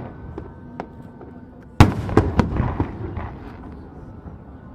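Aerial fireworks shells bursting: a few small pops, then a very loud bang just under two seconds in, followed quickly by several more bangs, with a rumbling echo fading afterwards.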